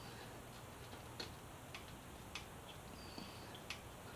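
Faint, irregularly spaced clicks and ticks, about five of them, as hands work a plastic wiring-harness clip loose on a motorcycle, over quiet room tone.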